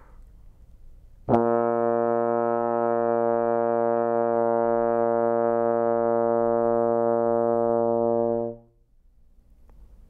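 Trombone playing one long, steady low note. It starts with a clean tongued attack about a second in, is held at an even level for about seven seconds, then stops.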